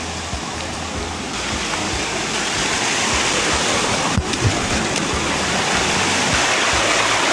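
Rushing water of a tiered waterfall cascading over rock, a steady rush that grows louder about two seconds in, with a couple of short knocks a little past the middle.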